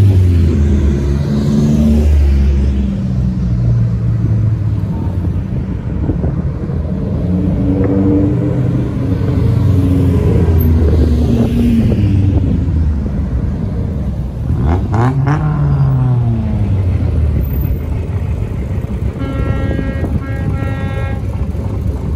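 Cars and trucks driving past one after another, their engines running and rising and falling as each goes by; a little past halfway one engine swells up and falls away in pitch as it passes. Near the end a car horn sounds for about two seconds.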